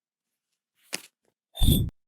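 Sewing work on fabric: a single sharp click about a second in, then a short loud burst with a rapid rattle in it near the end.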